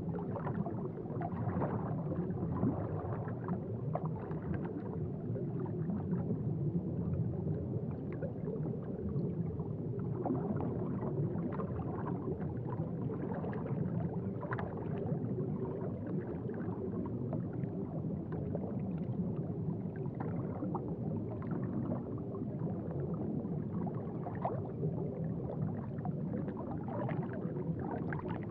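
Aquarium water bubbling and gurgling steadily, with a constant low wash dotted with many small bubble pops.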